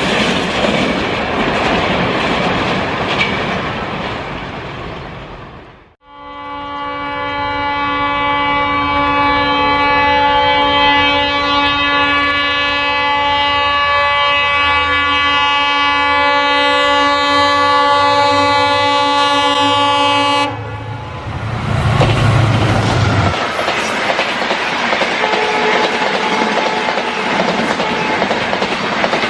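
A train's wheel clatter fades away. Then an Indian Railways diesel locomotive's horn sounds one long steady honk of about fourteen seconds. When it stops, the locomotive rumbles low as it passes, and the train's wheels clatter over the rails.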